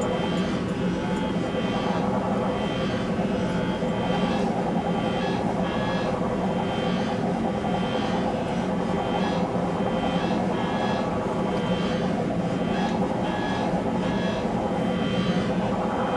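Computer-generated electronic drone from the DAVE motion-tracking music system, its sound changing with the dancers' movements. It runs steady and dense, with short high tones coming and going over it about once a second.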